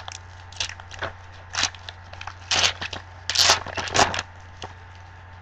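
Foil wrapper of a trading-card pack being torn open and crinkled, in a series of short crackling bursts that stop a little over four seconds in. A steady low electrical hum runs underneath.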